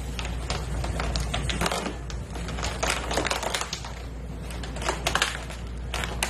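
An otter crunching and clacking an ice cube: irregular sharp clicks and crunches over a low steady hum.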